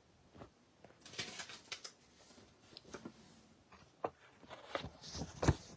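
Handling noise of the recording device as it is picked up or moved: scattered clicks, rustles and knocks, busier near the end, with a sharper knock about five and a half seconds in.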